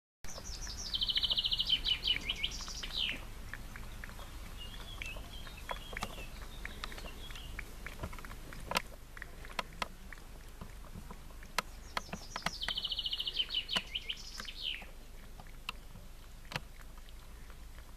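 A songbird sings the same short phrase twice, a fast trill followed by falling notes and a final flourish, about a second in and again about twelve seconds in. In between come soft, irregular clicks of a cat lapping milk from a bowl.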